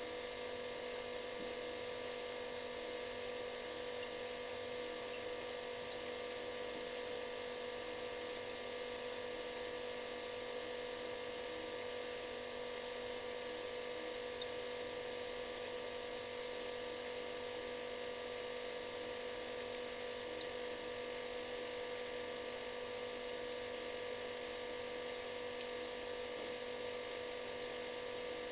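Refrigerator running with a steady buzzing hum: one strong mid-pitched tone and several fainter steady tones over a soft hiss.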